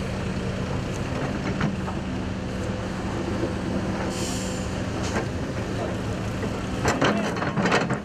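Excavator's diesel engine running steadily as its bucket digs into the earth, with a brief hiss about four seconds in and a quick series of knocks and scrapes near the end.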